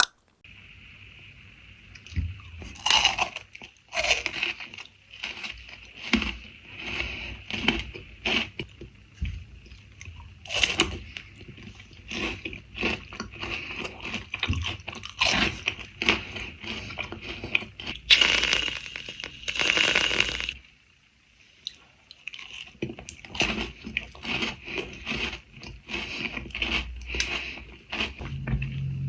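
Ferrero Rocher chocolates being eaten close to the microphone: irregular crunchy bites and chewing through the wafer-and-hazelnut shell, with crackling. About two-thirds of the way through there is a louder noisy stretch lasting about two seconds.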